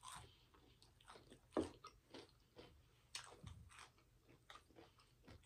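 A person chewing a mouthful of crispy, dark-fried chicken close to the microphone: a string of faint, irregular crunches and mouth clicks, the loudest about one and a half and three seconds in.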